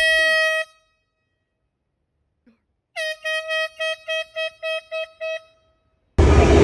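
Air horn blasting: one short blast, then after a pause a rapid string of about ten short blasts, roughly four a second. Near the end a loud rushing noise cuts in abruptly.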